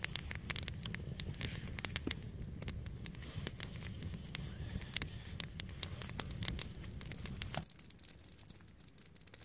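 Wood campfire crackling, with many sharp snaps over a low, steady rumble of the flames. Near the end it drops to a much quieter, sparser crackle.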